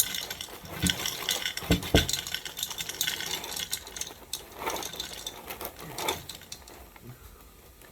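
Plastic inner bag of a cereal box crinkling and crackling as it is torn and pulled open, busiest in the first few seconds and thinning out towards the end.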